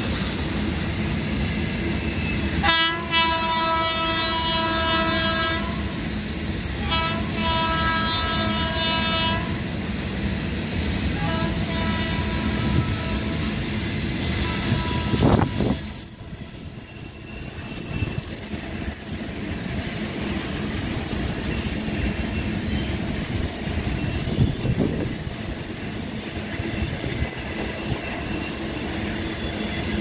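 WAG-9 electric locomotive's horn sounding three blasts of about three, two and a half and two seconds, over the rumble of its BCNA covered wagons rolling past. About sixteen seconds in the sound drops suddenly, leaving only the freight wagons rolling by.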